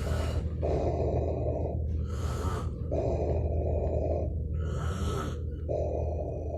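A sleeping man snoring heavily, with breathing that sounds like diving equipment. About three times, a rasping snore about a second long alternates with a short hissing breath, over a steady low hum.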